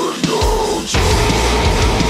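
Progressive deathcore music: distorted electric guitars holding a chord over a heavy low end. The low end drops out at the start, crashes back in about half a second in and stops briefly again just before one second.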